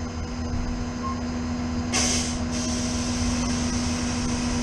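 Flatbed tow truck's engine idling steadily, with a short hiss of released air about two seconds in.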